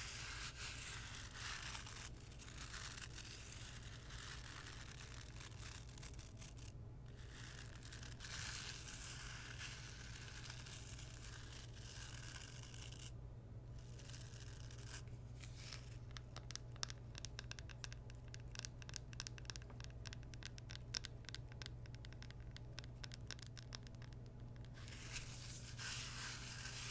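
Bristles of an EcoTools dry body brush being brushed and scratched, first in long continuous strokes, then in a long run of rapid short scratches in the second half.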